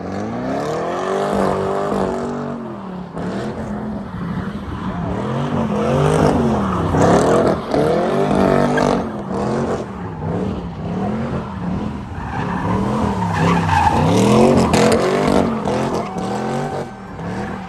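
Pontiac G8 doing donuts: the engine revs up and down about once a second while the rear tyres squeal and spin on the asphalt.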